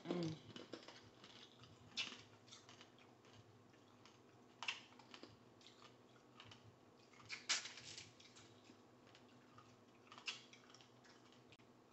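Hard sugar-candy shell on candy-coated strawberries cracking and crunching as they are bitten and chewed: a few sharp crunches a couple of seconds apart, about half a dozen in all, with quiet chewing between.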